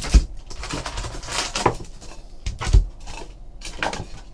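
Trading cards being shuffled and set down on a table: light rustling with a few sharp taps and thumps, the loudest near the start and about three seconds in.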